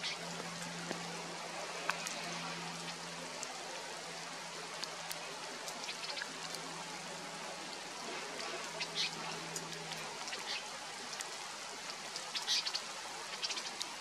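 Steady outdoor hiss with a few short, high bird chirps, the clearest a little past halfway and again near the end. A low steady hum runs underneath and stops about ten seconds in.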